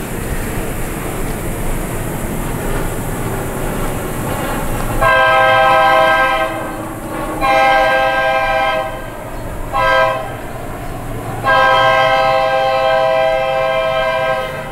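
Locomotive air horn sounding the grade-crossing signal: two long blasts, a short one, then a final long one, over the steady rumble of a train.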